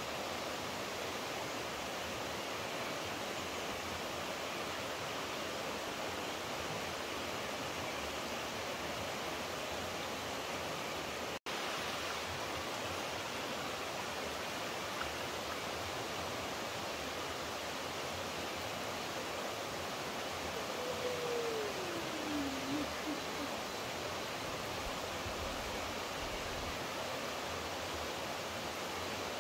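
Steady rushing of running water, like a stream or small waterfall, with a momentary dropout about a third of the way in. Near the end of the middle, a single short tone falls in pitch and turns back up.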